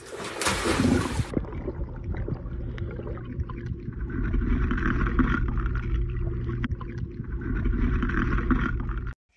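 A person splashing into a swimming pool: a loud splash lasting about a second, then water churning and sloshing close to the phone microphone, with a heavy low rumble and scattered knocks. The sound cuts off suddenly near the end.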